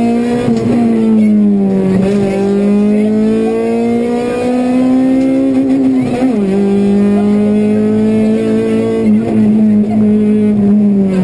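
Honda Civic Type R rally car's four-cylinder engine heard from inside the cabin, running hard at high revs: its pitch climbs slowly as the car accelerates, then falls sharply about six seconds in at an upshift.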